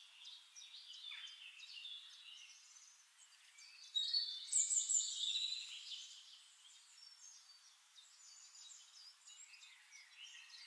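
Faint birdsong: small birds chirping and twittering in high, thin calls, louder for about two seconds around four seconds in.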